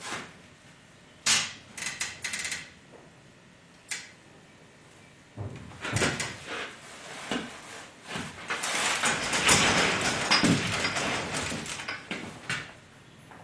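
Hand chain of a chain-fall hoist being pulled, the steel links clinking and rattling in short spurts, then in a longer unbroken rattle through much of the second half.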